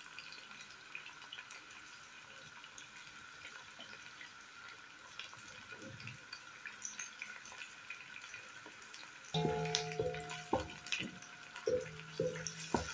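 Chopped onion and garlic sizzling gently in oil in a pot, faint crackles and pops. About nine seconds in it turns louder as a wooden spoon stirs and scrapes the pot, with a few knocks.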